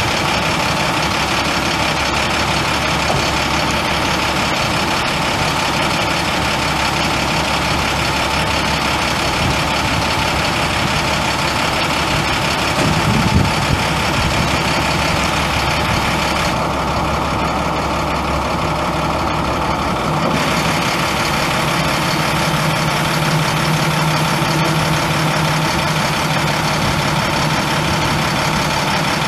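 Diesel bucket truck's International MaxxForce 10 inline-six turbo diesel idling steadily, with a brief low thump about halfway through.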